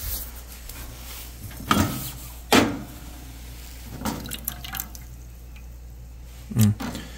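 Hot water in a pot dripping and splashing as a can of wet cat food warming in the bath is handled, with a couple of short sharp sounds about two seconds in.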